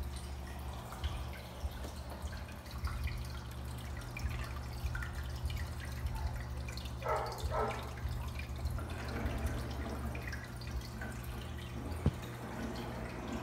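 Water dripping and bubbling in a fish tank over a steady low hum. Two louder gurgles come about seven seconds in, and there is a sharp click near the end.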